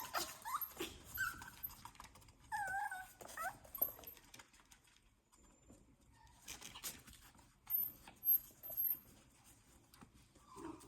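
Coton de Tulear puppies whimpering in a few short, high-pitched cries that bend up and down, followed by scattered clicks and knocks.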